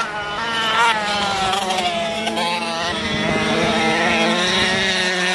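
Several small 85cc-class flat-track racing motorcycles running through a turn. Their engines rev up and ease off, with one sharp rise in pitch about a second in.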